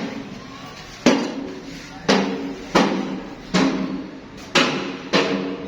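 Hammer blows, six sharp strikes roughly a second apart, each followed by a short ringing tone.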